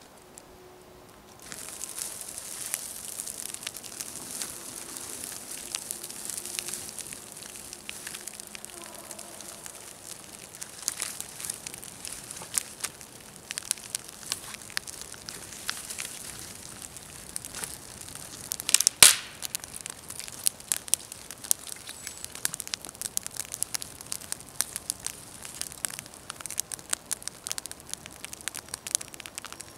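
Small twig campfire catching and crackling: a steady hiss starts about a second and a half in, with dense irregular crackles and pops. One loud sharp snap comes about two-thirds of the way through.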